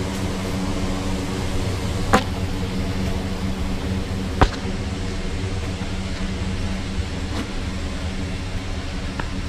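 Steady airliner cabin drone, a low humming rumble of the aircraft's air and machinery, with two sharp clicks about two seconds and four and a half seconds in.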